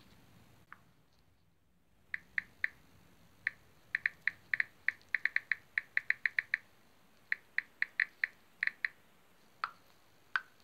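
Smartphone touchscreen keyboard click sounds as messages are typed: about thirty short, sharp clicks of the same pitch at an uneven typing pace, in quick runs and pauses, starting about two seconds in and stopping near the end.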